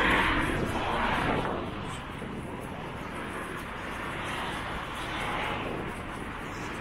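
Road traffic passing on a busy street: one vehicle swells past in the first second or so, and another goes by about four to five seconds in.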